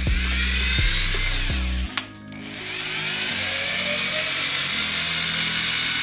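Power drill spinning an 11/16-inch spade bit through a plastic car bumper, its whine sliding up and down in pitch. It stops with a click about two seconds in, then runs again. Background music plays underneath.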